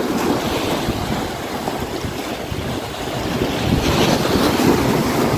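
Sea waves washing and splashing against the boulders of a rock breakwater, with wind buffeting the microphone; the surf gets a little louder near the end.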